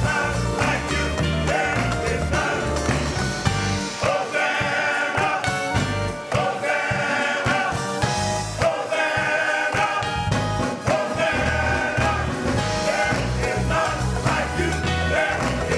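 Gospel music played by a band, with bass and drums under singing voices.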